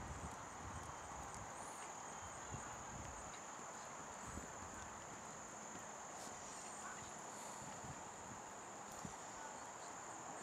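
Crickets chirring in a steady, high-pitched drone, with a few faint low thumps at uneven intervals beneath.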